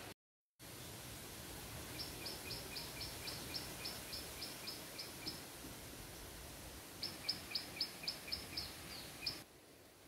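A bird calling in two runs of short, high chirps, about four a second, the first lasting about three seconds and the second about two, over a steady background hiss.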